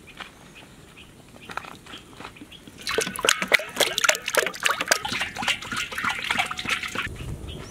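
Cooking oil pouring from plastic jugs into a large empty iron kadai, splashing onto the metal, starting about three seconds in and stopping shortly before the end.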